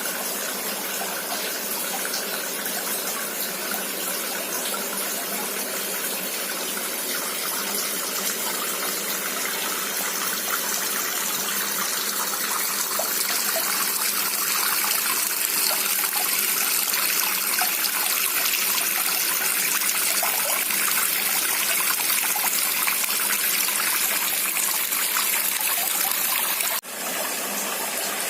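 Homemade shower-style water fountain running on a small pump, water pouring steadily down into its clear plastic bowl. It grows a little louder about halfway and cuts out for an instant near the end.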